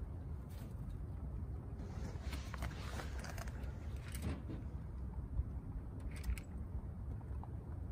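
Rabbits feeding and shifting about in a wooden hutch: scattered soft clicks and rustles of hay and paws on the boards, over a steady low rumble.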